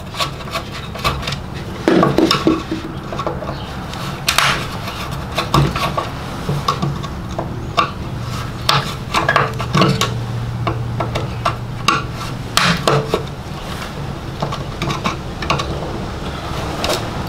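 Screwdriver and hands working wiring and a Lucas voltage regulator box loose from a car's steel bulkhead: irregular small metallic clicks, clinks and scrapes.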